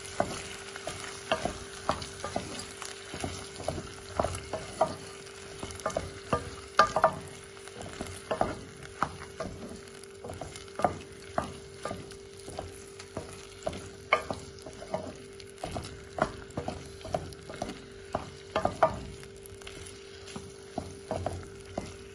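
A wooden spoon stirring fava beans, diced tomato and onion frying in oil in a stone-coated pot: irregular knocks and scrapes of the spoon against the pot, about two a second, over a light sizzle. A steady hum lies under it.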